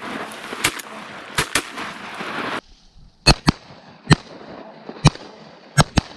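Shotgun volley from two hunters shooting at passing ducks: sharp shots fired a fraction of a second to a second apart, about nine in all. About two and a half seconds in, the background hiss drops away abruptly.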